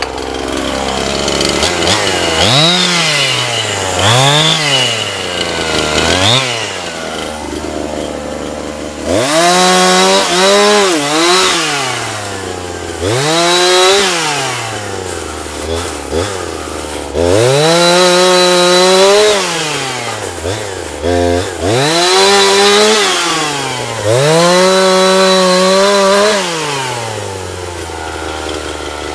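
Petrol two-stroke chainsaw revved in repeated throttle bursts, climbing to full speed, holding there for a second or more, then dropping back to a lower speed, about a dozen times, while cutting brushwood and small branches.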